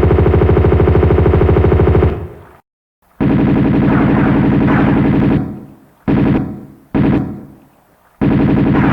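Automatic gunfire sound effects in several bursts: a long burst of rapid fire lasting about two seconds, a brief dead-silent gap, a second long burst, two short bursts, and another long burst starting near the end.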